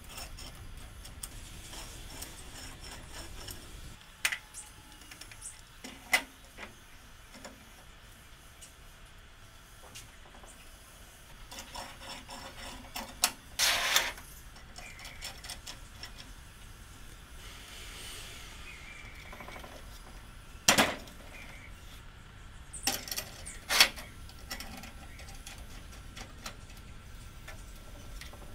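Scattered metallic clicks, scrapes and knocks of a homemade steel clamp being worked by hand: its threaded eye-bolt screws turning and the clamp and a square steel tube knocking on a steel workbench. A few of the knocks come in short clusters.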